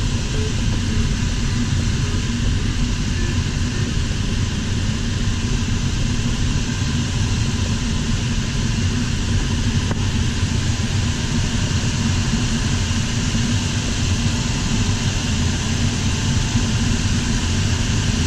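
Steady rush of air over an LS4 sailplane in unpowered gliding flight, an even hiss with no engine.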